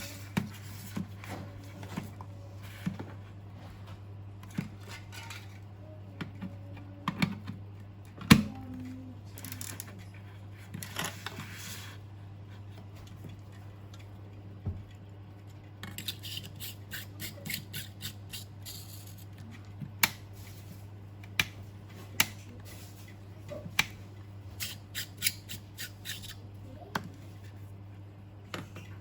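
Hands working on a workbench: scattered sharp clicks and taps of small hard parts being handled, with short stretches of scratchy rustling or snipping about ten seconds in and again past the halfway point. A steady low hum runs throughout.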